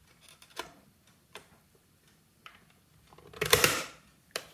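Plastic faceplate of a ResMed Escape II CPAP machine being pressed back onto its housing: a few light clicks, then a louder plastic snap and rub about three and a half seconds in as the clips seat, and one more click near the end.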